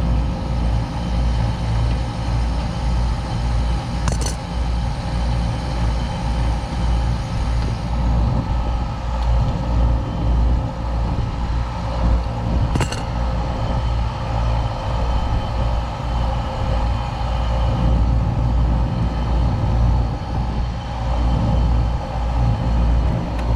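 Packaged air-conditioning unit running, its compressor and new condenser fan motor making a steady low hum. Two short sharp clicks break through it.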